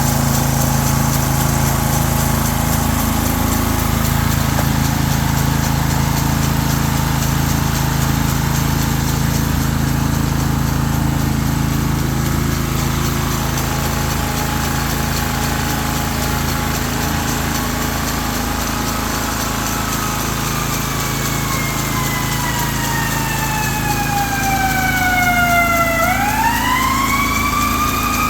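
Small engine of a Ryan GreensAire lawn aerator running steadily. In the last ten seconds a siren wails over it, its pitch falling slowly and then rising again near the end.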